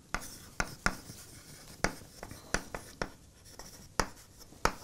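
Chalk tapping and scratching on a blackboard as words are written: a string of about nine sharp, separate taps.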